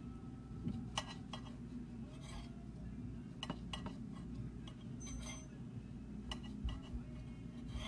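Knife cutting slices of bread on a glass plate, the blade clicking against the glass at irregular moments, about eight times.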